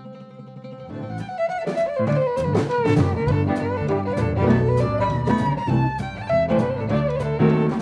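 Live instrumental music led by a bowed violin melody over sharp percussive hits, swelling louder about a second in.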